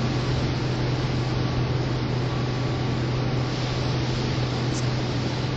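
Steady low hum with an even hiss of background noise, unchanging throughout; no singing.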